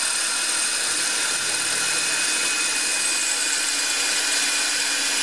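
Hammer drill running steadily in drill-only mode, its masonry bit grinding into ceramic wall tile. The bit is not as sharp as it should be.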